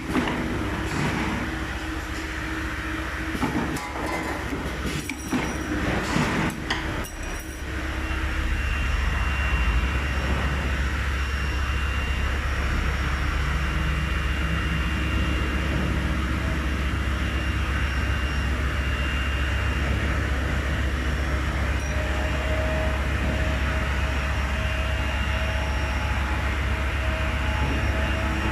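Flat wire automatic rolling and welding machine running: a few irregular metallic clanks and knocks in the first several seconds, then a steady heavy low hum with a faint high whine over it.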